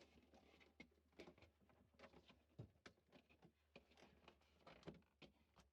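Near silence, with a few faint, irregular clicks and taps from handling the refrigerator's plastic air-tower cover over a faint low hum.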